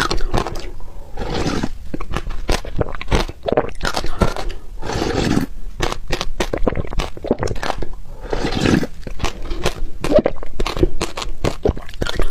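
Ice being bitten and chewed: dense, irregular crunching and cracking, with grinding stretches between the bites.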